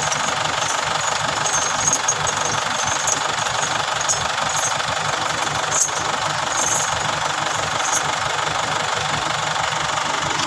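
Truck's diesel engine running steadily with a knocking clatter, a few faint clicks scattered over it.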